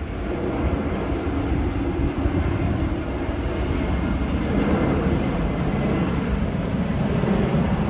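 Airliner landing noise: a steady low rumble with a few faint knocks.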